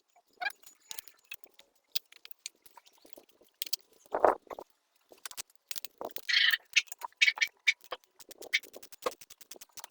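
Metal hand tools and parts clinking and knocking against the engine at irregular moments, with a couple of short scrapes. Near the end comes a quick, steady run of clicks, like a ratchet wrench being turned on a bolt.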